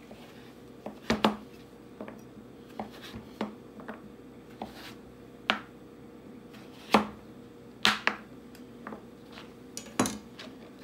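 Chef's knife cutting raw butternut squash into batons and cubes on a plastic cutting board: irregular sharp knocks of the blade striking the board, one or two a second.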